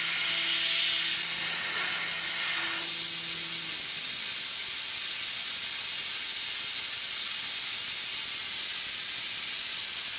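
Coolant spraying inside a Tongtai SH-5000P horizontal machining center, a steady hiss. A low machine hum under it drops away about four seconds in.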